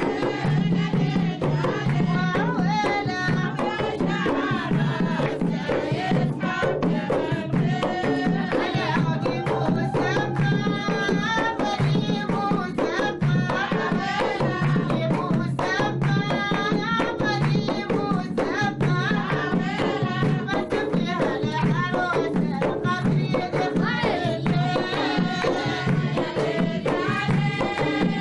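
Omani folk song: women singing together over hand drums with a steady beat and rhythmic clapping.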